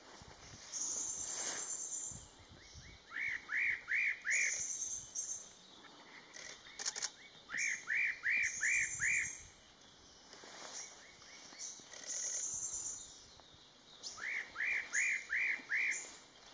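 Spot-breasted parrotbill singing: three phrases of four or five quick, clear, arched whistled notes, a few seconds apart, with thinner high-pitched notes in between.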